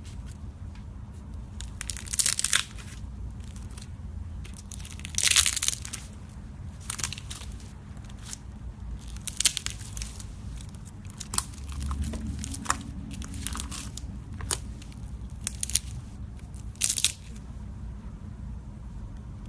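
Slime being squeezed and pulled by hand: irregular crackling pops and a few longer crunchy, crinkly bursts.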